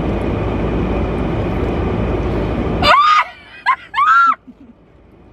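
Steady car-cabin rumble that cuts off abruptly about three seconds in, followed by a few short, high-pitched squealing shrieks over roughly a second and a half.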